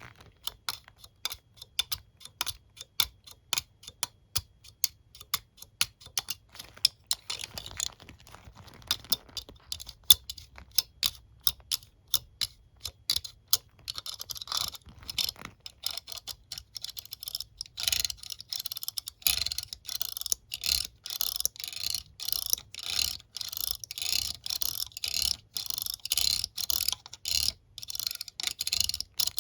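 Hairbrush being touched and brushed: a run of sharp clicks, several a second, turning about halfway into quicker scratchy strokes of the bristles, about two a second.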